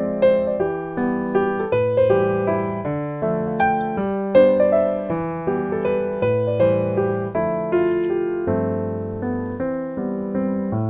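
Background piano music: a gentle melody of notes struck and fading, about two a second.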